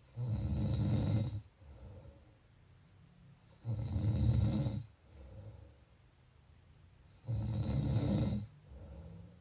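A person snoring: three loud snores about three and a half seconds apart, each lasting a little over a second and followed by a softer, shorter breath.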